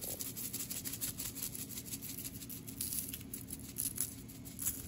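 All-purpose seasoning shaken from a shaker onto mustard-coated baby back ribs, the granules pattering on the meat and foil as a run of quick, irregular ticks.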